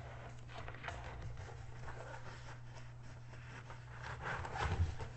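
Hands handling a rolled diamond-painting canvas and its packaging: scattered light rustles and taps, busiest about four to five seconds in, over a steady low hum.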